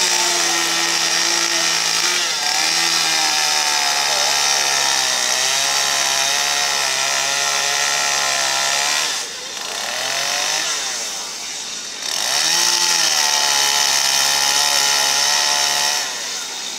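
Gas chainsaw running at full throttle while carving wood, its engine pitch sagging slowly as the chain bites. About nine seconds in it eases off and gives a short rev. Then it goes back to full throttle for another cut and eases off again near the end.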